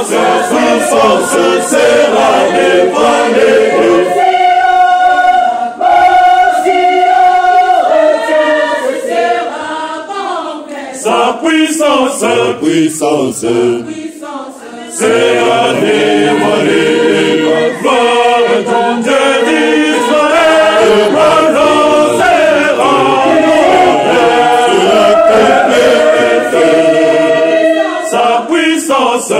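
Large mixed choir of men's and women's voices singing a sacred choral song in parts, with a softer, thinner passage in the middle before the full choir comes back in.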